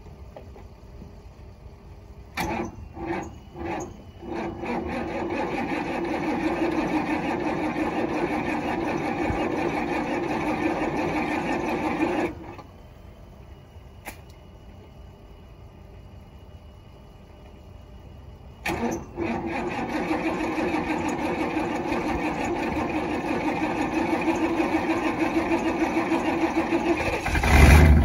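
Third-generation Chevrolet Camaro engine cranking in a few short bursts and catching, running for about eight seconds, then dying. It is restarted about nineteen seconds in and keeps running, getting much louder near the end. The engine has no coolant in it and doesn't sound too good.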